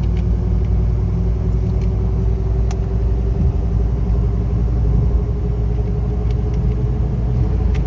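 Car driving at highway speed, heard from inside the cabin: a steady low road and engine rumble with a constant hum.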